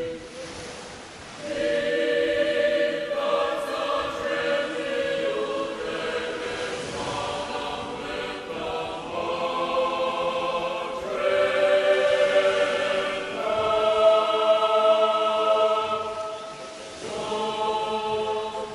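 Background music: slow choral singing in long held chords that change every second or two.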